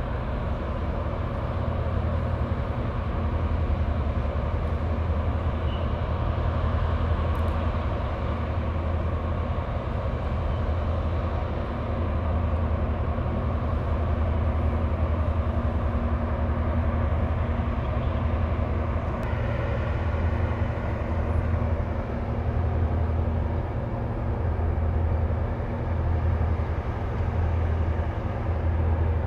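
Diesel engines of a coast guard patrol vessel running, a steady low drone with a hum. About two-thirds of the way through the low part begins to throb about once a second.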